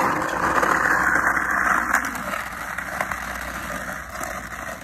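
Skateboard wheels rolling on rough asphalt with a small dog riding the board. The rumble starts abruptly and fades slowly as the board rolls away.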